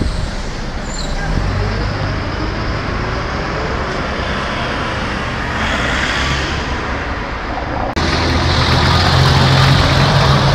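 City road traffic with a car passing close about six seconds in. About eight seconds in the sound changes suddenly to louder, nearer engine noise with a steady low hum from slow-moving trucks and vans close by.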